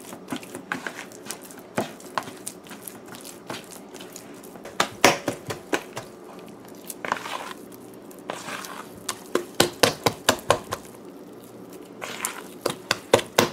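A hand beating thick split-pea and flour batter in a plastic bowl: irregular slaps and squelches, in quick runs of about three or four a second at times.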